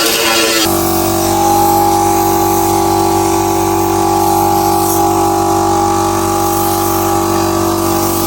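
Music cuts off under a second in, giving way to a steady machine hum: a motor running at constant speed, with several held tones, the strongest a mid-pitched whine.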